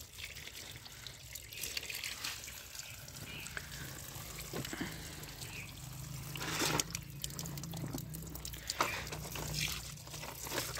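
Tap water running in a steady stream, splashing into a plastic basket and over muddy toy vehicles rinsed by hand, with a few short knocks as the toys are handled.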